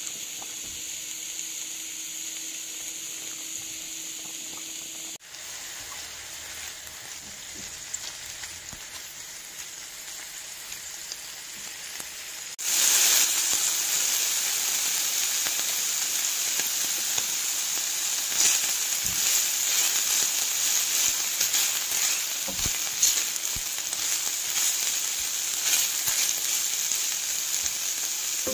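Food frying in hot oil in a pan: a steady sizzling hiss, quieter for the first dozen seconds, then louder with scattered crackles and pops from about 13 seconds in.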